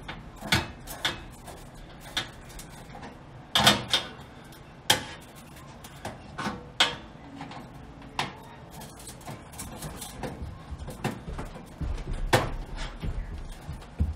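Phillips screwdriver and screws clicking and scraping against the sheet-metal broiler inside an oven cavity while the broiler's mounting screws are taken out, in irregular clicks and knocks, the sharpest about four and five seconds in and again near the end.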